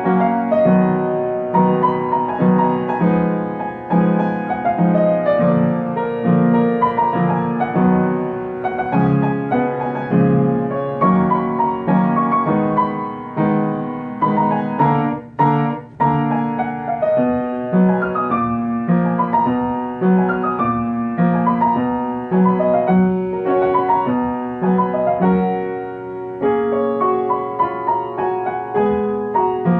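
Solo piano playing a gentle pop melody over evenly repeated low chords, with a brief break in the playing about halfway through.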